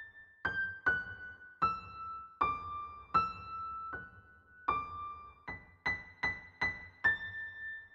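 Music: a slow melody of single high notes on a piano-like keyboard, each note struck and left to ring out, about a dozen notes in all.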